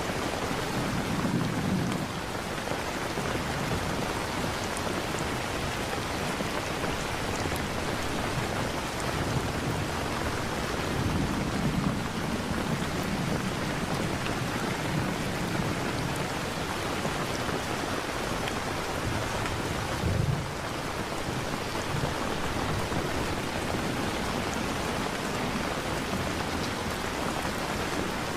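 Steady rain with low rumbles of thunder: one about a second in, one around the middle and one about two-thirds of the way through.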